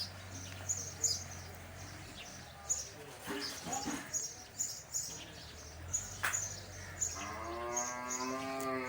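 A cow mooing once near the end, a single long call of about two seconds. Small birds chirp repeatedly and steadily in the background.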